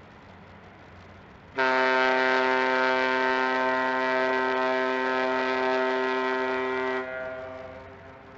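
A ship's horn sounding one long steady blast of about five and a half seconds. It starts about a second and a half in, cuts off, and an echo fades away after it.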